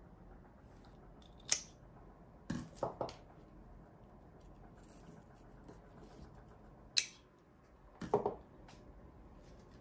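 Scissors snipping flower stems: two sharp snips about five seconds apart, each soon followed by a few duller knocks as the stems are handled.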